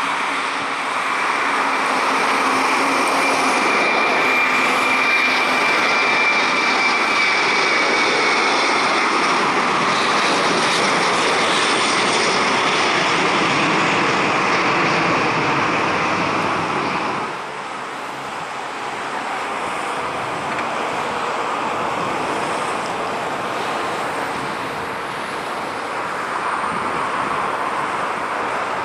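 Boeing 737 twin jet engines at takeoff power as the airliner rolls and climbs away, with a high fan whine that fades over the first several seconds. About two thirds of the way in the sound drops suddenly to the quieter, steady engine noise of another 737 coming in to land.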